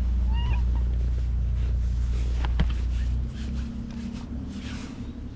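A cat meows once, briefly, about half a second in, over the steady low hum of an idling engine. The engine hum drops away about three seconds in.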